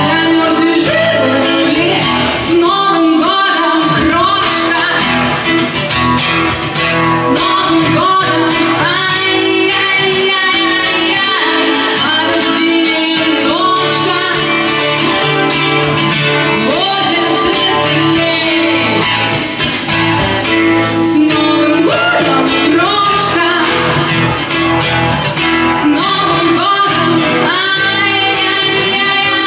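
A song performed live: a singer's voice over a strummed acoustic guitar, continuous throughout.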